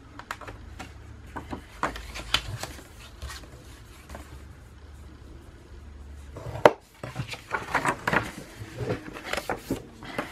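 Sheets of scrapbooking paper and folded cardstock being handled, slid and pressed flat on a plastic scoring board: rustling with light taps and clicks, and one sharp click about two-thirds of the way through.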